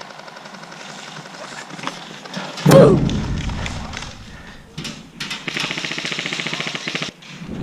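Airsoft electric rifle firing in fast full-auto bursts, with a rapid, even rattle of shots that stops abruptly near the end. A loud thump comes about a third of the way in.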